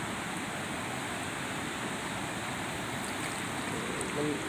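Steady rushing wind noise on the microphone. A brief low voice sound comes near the end.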